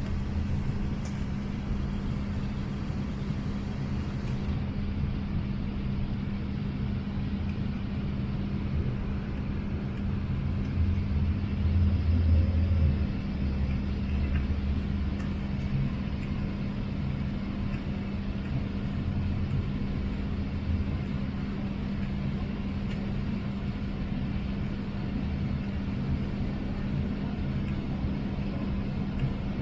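Airliner cabin noise heard at a window seat: a steady low rumble of engines and airflow under a constant hum, swelling briefly a little before halfway through.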